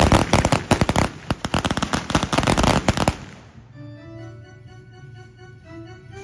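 Feu de joie fired by a line of police riflemen: a rapid, irregular ripple of blank rifle shots that stops about three seconds in. A band then takes up sustained, slowly stepping notes.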